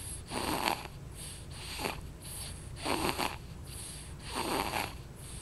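A sleeping baby snoring in regular, noisy breaths, about one every second and a half.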